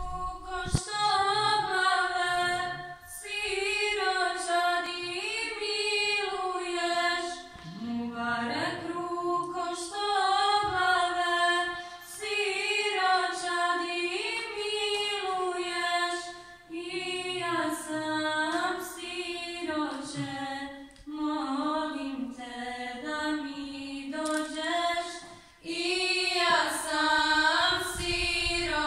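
Women's choir singing a cappella, long melodic phrases of a few seconds each with brief pauses between them.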